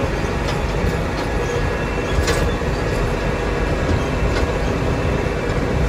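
Tractor driving across a field, heard from inside its cab: a steady engine and running-gear rumble with a few faint clicks and rattles.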